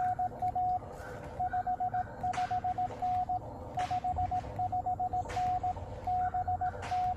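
Morse code (CW) from a Swedish station received on the 10-metre amateur band: a single steady mid-pitched tone keyed into dots and dashes, over band hiss with faint static crackles about every second and a half.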